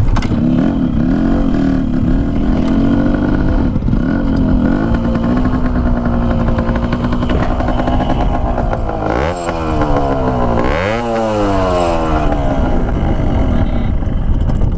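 Yamaha RX-King's two-stroke single-cylinder engine idling steadily with a very crisp exhaust note. It is revved twice, about nine and eleven seconds in, each time rising and falling back to idle.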